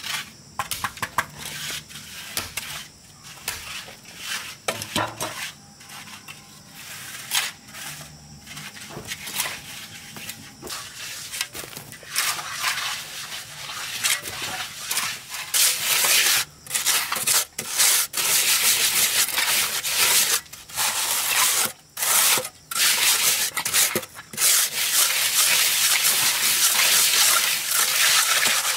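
Trowel or float scraping and smoothing cement mortar on brickwork. Separate strokes with short gaps at first, becoming louder and almost continuous about halfway through.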